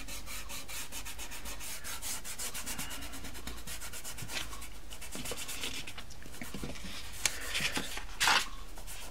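A fingertip rubbing soft pastel into textured paper, blending and softening the colour with quick back-and-forth strokes. The strokes come thick and fast for the first few seconds, then thin out, with a couple of louder scuffs near the end.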